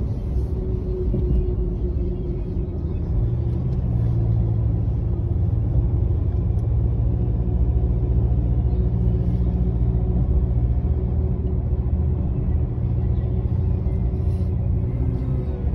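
Steady low rumble of a car driving at speed, heard from inside the cabin: engine and tyre noise on the road.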